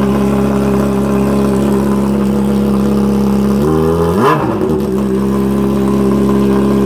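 A 2008 Honda CBR600RR's inline four-cylinder engine idling loudly on its bare header with the stock exhaust removed. A little past halfway the throttle is blipped once and the pitch rises and falls back to a steady idle. The engine cuts off right at the end.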